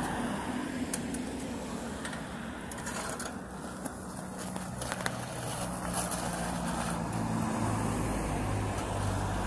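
Harley-Davidson V-twin motorcycle engine idling steadily, heard muffled, with a deeper rumble coming in near the end.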